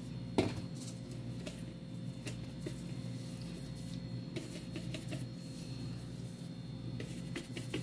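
Faint scattered light taps and rustles of a gloved hand sprinkling dried parsley flakes over a glass dish of spaghetti, with one sharper tap about half a second in, over a steady low hum.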